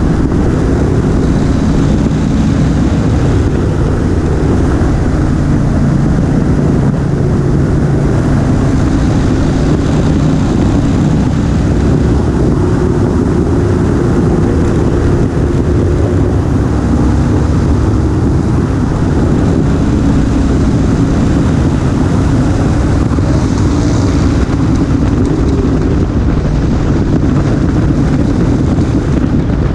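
Motorcycle engine running steadily at road speed, its pitch shifting a little with the throttle, with wind rushing over the bike-mounted camera's microphone.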